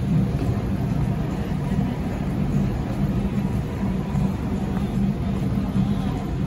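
Street traffic: cars moving slowly along the street, a steady low rumble of engines and tyres.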